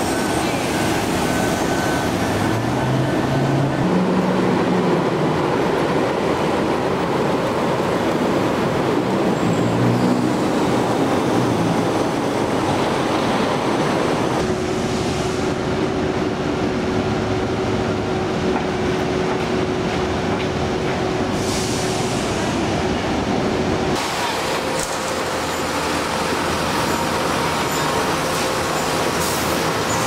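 Steady city street noise of traffic and idling construction machinery, changing abruptly twice: about halfway through and again near the end.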